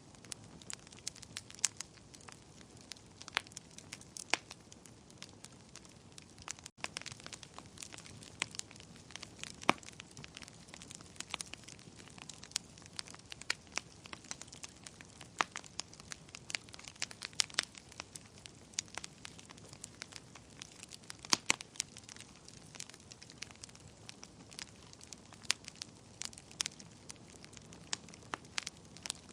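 Wood fire burning in a fireplace: irregular sharp crackles and pops over a low, steady rustle of flames, with a momentary dropout about seven seconds in.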